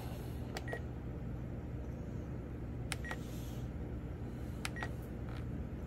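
Spektrum 10-channel radio transmitter's buttons and scroll wheel clicking as menus are stepped through, three pairs of clicks, each second click with a short high key beep from the transmitter. A low steady hum underneath.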